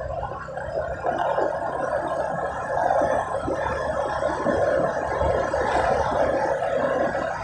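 Motorcycle on the move: steady engine and road noise with wind rumble on an on-board microphone.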